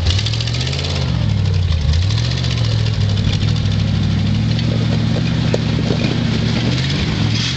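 Engine of a lifted four-wheel-drive SUV working over snowy mounds off-road. The revs dip and rise a couple of times in the first two seconds, then hold steadier.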